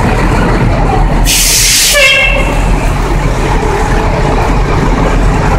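Fire department ladder truck's engine running loudly as it pulls past, with a sharp hiss of air a little over a second in, cut off by a short high tone.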